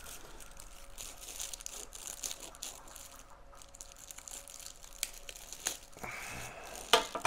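Plastic packaging bag rustling and crinkling as it is handled and cut open with a knife, with a few sharp clicks in the last two seconds.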